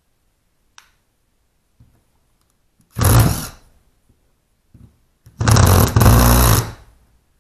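Cordless impact driver driving a screw into a wall in two bursts, a short one and then a longer one of about a second and a half.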